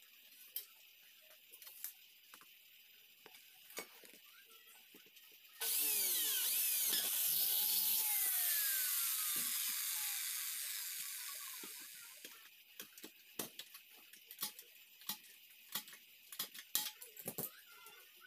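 A power tool motor starts abruptly about five and a half seconds in and runs loudly for about six seconds, its pitch sweeping, then slows and fades out. Light clicks and taps from handling the metal tubing come before and after it.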